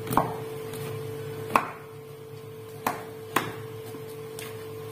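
Kitchen knife working over a raw lamb shoulder on a metal baking tray, its blade knocking against the tray in several sharp clicks about a second apart.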